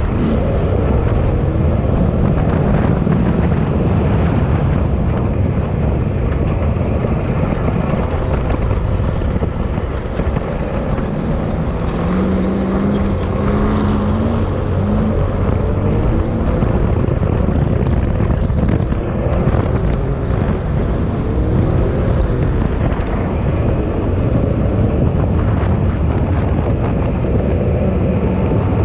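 Side-by-side off-road vehicle's engine running hard while driving over sand dunes, its pitch rising and falling with the throttle, under heavy wind noise on the microphone.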